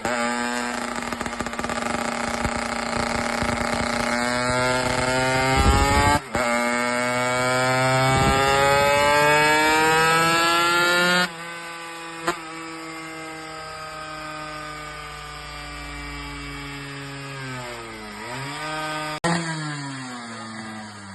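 A tuned racing motorcycle engine revving hard, its pitch climbing steadily, cutting out for a moment about six seconds in as at a gear change, then climbing again. About eleven seconds in it drops off and runs quieter and lower, with a brief dip and rise near the end.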